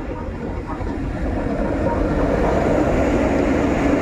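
ZSSK Cargo class 131 twin-section electric locomotive approaching along the platform and passing close by. Its rumble and hum grow louder over the first two seconds and stay loud as it draws alongside.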